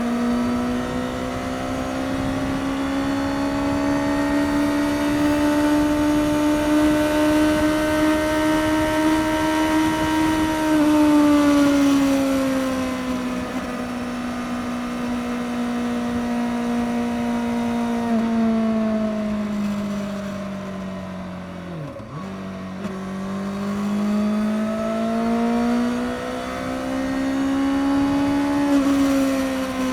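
Suzuki GSX-S750's inline-four engine on its stock exhaust, under way at highway speed with wind noise. Its note climbs slowly, eases off and falls about a third of the way in, dips to its lowest about two-thirds through, then builds again before easing near the end.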